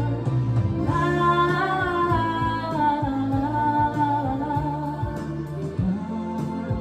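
A ballad's backing music with a female voice singing a wordless melody of long, gently gliding notes over a steady bass line.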